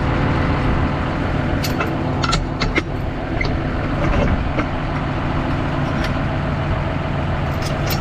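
Farm machine's diesel engine running steadily, with a few light clicks and rattles over it.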